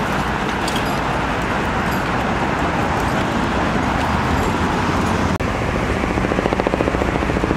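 Steady rushing noise, then from a little past halfway a helicopter's rotor beating rapidly and evenly overhead.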